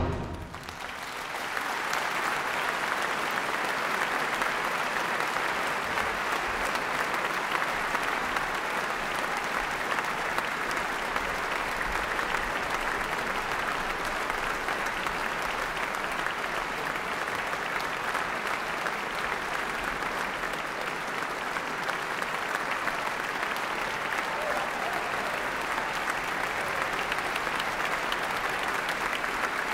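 Large concert audience applauding. The applause rises about a second in as the band's last chord dies away, then holds at a steady level.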